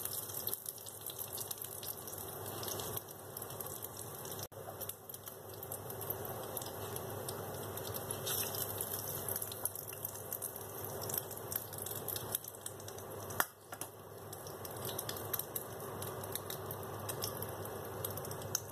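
Hot cooking oil sizzling and crackling in a stainless-steel frying pan as beef fritters are lifted out, a steady hiss with many small pops. A single sharp click about thirteen seconds in.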